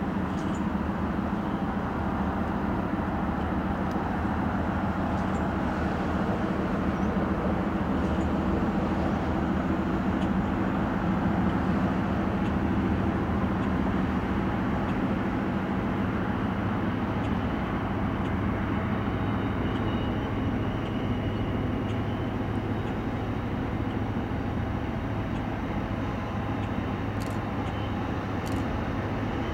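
Distant GE Evolution-series (GEVO) diesel locomotives working as they approach with a freight train: a steady low engine drone that holds even throughout.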